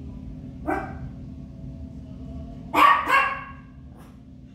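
Small Papillon dog barking: one short bark, then two loud barks in quick succession near the middle, with another starting right at the end.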